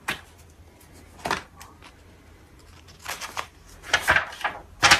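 Paper rustling as the pages of a printed quick-start guide are handled and turned: several short rustles, bunched toward the end.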